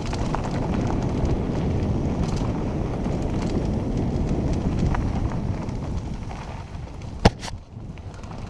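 Mountain bike descending a rocky dirt trail: tyres rumbling and the chain and frame rattling over stones, easing off after about six seconds, with one sharp knock near the end.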